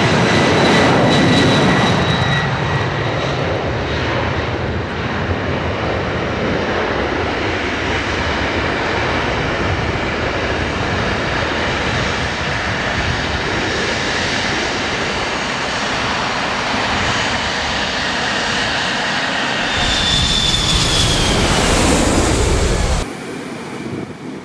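Jet airliner engines running with a steady roar and a high whine; near the end a louder whine falls in pitch. The roar cuts off suddenly, leaving wind noise on the microphone.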